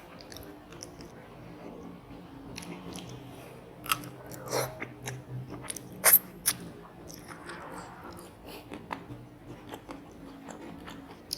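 A person chewing and biting food close to the microphone, with a few sharp louder crunches or clicks about four and six seconds in.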